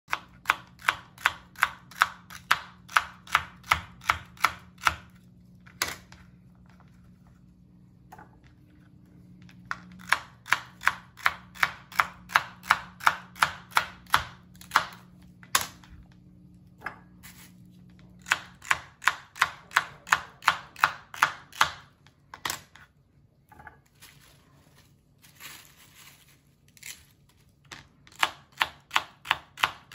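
Kitchen knife slicing celery stalks on a plastic cutting board: quick, even cuts at about three a second, in runs of several seconds with short pauses between.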